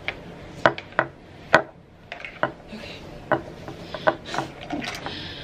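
Dishes and utensils being handled: irregular sharp knocks and clinks, about one every second.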